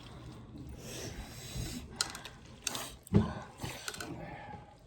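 Close-up eating sounds of spicy pork: chewing, slurping and breathing, with a few light clicks and a soft thump about three seconds in.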